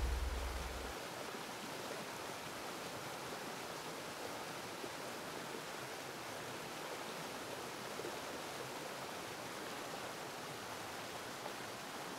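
A deep low boom fades out within the first second, leaving a steady, even hiss of flowing river water.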